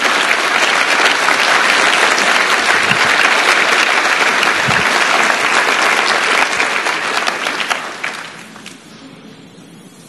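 Large audience applauding, dying away about eight seconds in.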